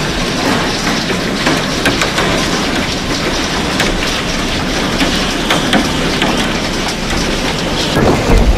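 Hail and heavy rain hammering on a car's roof and windscreen: a dense, loud clatter of small impacts over a steady rushing noise. Near the end a louder low rumble comes in.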